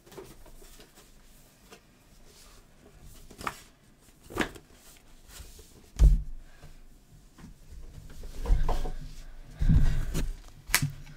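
Scattered knocks and dull thumps of someone rummaging for and handling a cardboard product box; the heaviest thump comes about six seconds in, with a cluster of thumps near the end.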